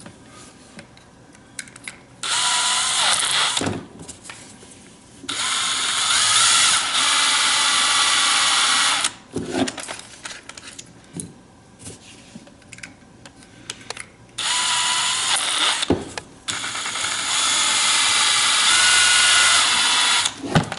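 A power drill running in four short runs of about two to four seconds each. It is spinning turnbuckles in its chuck to thread the ball cups onto them. Light clicks of handling the parts come between the runs.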